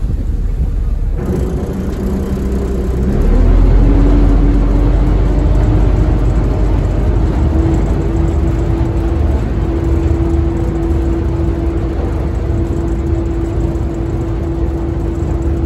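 Small passenger ferry's diesel engines running with a low rumble and a steady hum. About three seconds in the engines throttle up: the sound gets louder and the hum rises in pitch, then holds steady.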